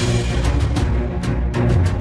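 Dramatic background music with a heavy low pulse and regular sharp percussive hits.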